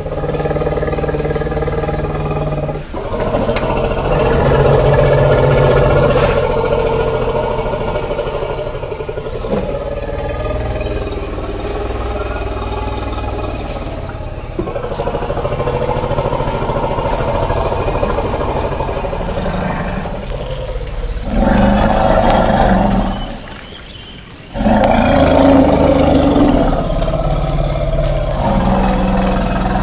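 Elephant calls: long, low, pitched calls lasting several seconds each, followed near the end by two loud calls about three seconds apart.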